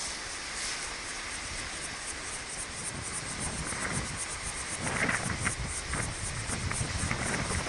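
Insects chirring in a fast, even pulse, over a low rumble of wind on the microphone. A few short, louder sounds come in over it in the second half.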